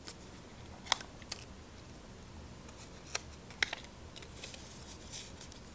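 A few faint, sharp clicks and taps from hands handling small pieces of protective tape and their backing sheet on a desk, over a faint low hum.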